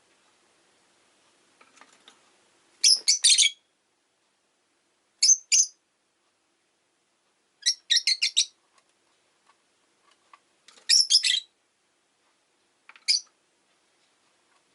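Rosy-faced lovebird chirping in short, high-pitched bursts of quick chirps, five bursts spaced a couple of seconds apart, with quiet in between.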